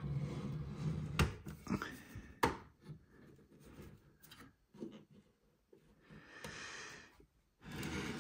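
Hands handling and turning the metal-cased Meratronik V543 bench multimeter on a table: two sharp knocks, about a second and two and a half seconds in, then soft rubbing and sliding sounds.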